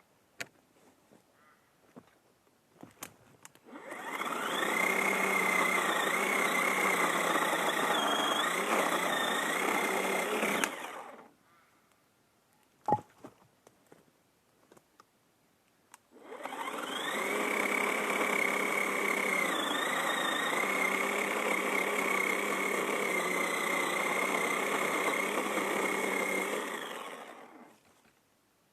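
Ozito 10-inch battery chainsaw running and cutting through a hardwood limb twice, two long steady cuts of about seven and eleven seconds, its electric whine dipping slightly in pitch as the chain loads up. Between the cuts there is a sharp knock and a few light clicks.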